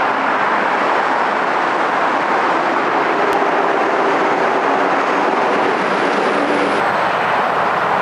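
Electric passenger train rolling past on the Northeast Corridor, a loud, steady rush of steel wheels on rail with a few faint tones running through it. About seven seconds in the sound shifts slightly as the scene cuts to another passing train.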